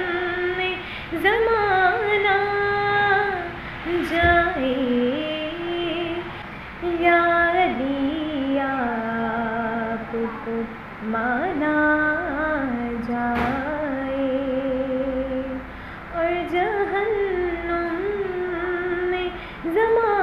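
A woman singing a devotional Urdu kalam unaccompanied. She holds long notes with gliding ornaments and vibrato, pausing briefly for breath between phrases.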